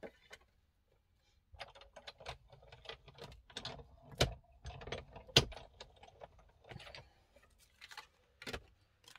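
A manual hand-cranked die-cutting machine cranking a metal die and cardstock through its rollers: irregular clicks and clacks, with two louder knocks about four and five and a half seconds in.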